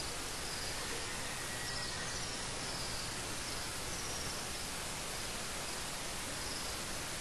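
Steady hiss of background noise in a vast, crowded prayer hall during a silent prostration, with faint short high chirps every second or two.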